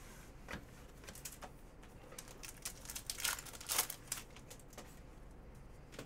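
Foil wrapper of a hockey card pack crinkling and tearing as it is ripped open by hand, in short irregular crackles that are loudest about three to four seconds in.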